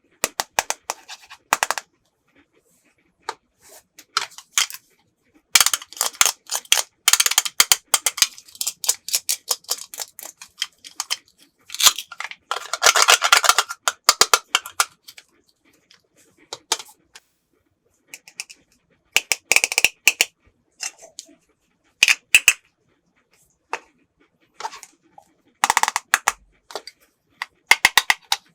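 Small plastic toy pieces clicking and clattering as they are handled and set down, in irregular bursts, busiest between about six and fifteen seconds in.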